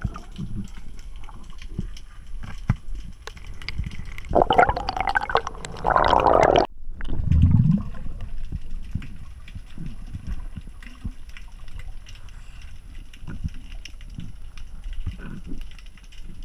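Underwater water sounds picked up through a camera housing during a spearfishing dive: muffled sloshing and small clicks, with a louder gurgling rush about four seconds in that stops abruptly a couple of seconds later, followed by a short low rumble.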